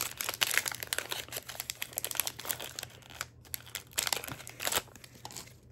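Crinkling and tearing of a card booster pack wrapper being opened by hand: a dense run of crackles that dies away about five seconds in.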